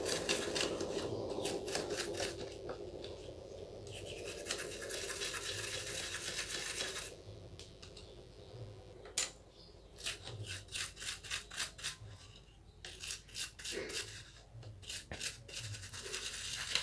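Small paintbrush scrubbing an LED chip board in a cup of petrol, working dirt out from between the LED chips. The bristles rasp in quick, rhythmic strokes, pause about seven seconds in, then come back in shorter bursts.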